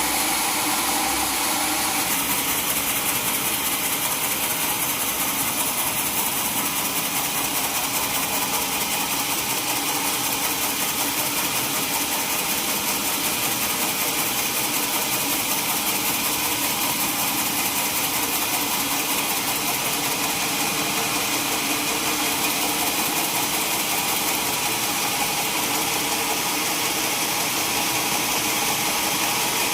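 Sawmill saw machinery running steadily, a continuous mechanical whir with a slight shift in tone about two seconds in.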